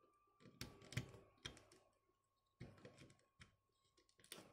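Faint clicks and taps of a plastic 1:18-scale action figure and its toy motorbike being handled and posed, coming in a few short clusters, the loudest about a second in.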